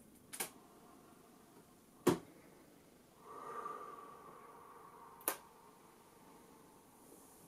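Quiet room tone broken by three sharp, separate clicks spread over several seconds, with a faint, brief hum between the second and third.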